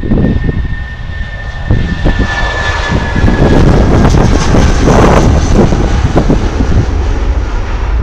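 Jet airliner's engines running loud as it moves along the runway, a steady whine that falls slightly in pitch, with a swell of jet hiss about four to five seconds in. Heavy wind buffets the microphone with a gusting rumble throughout.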